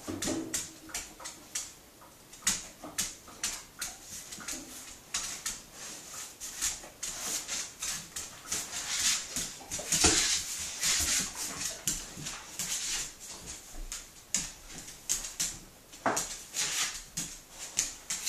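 A large dog's claws clicking and scraping on a ceramic tile floor in short, irregular steps as it walks about. The dog has trouble with its back legs.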